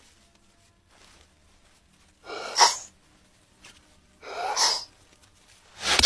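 Cartoon bird character's breathy, sneeze-like vocal bursts, three of them, each swelling up and ending in a sharp, loud burst.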